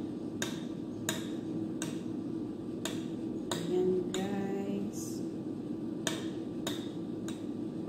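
A metal spoon clicking against a ceramic bowl as a breaded roll is turned in beaten egg: about ten light, sharp clinks at irregular intervals, over a steady low hum.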